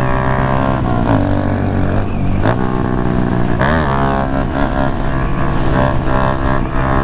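Honda Grom's 125 cc single-cylinder engine running under way, its note dipping and rising briefly a few times with the throttle.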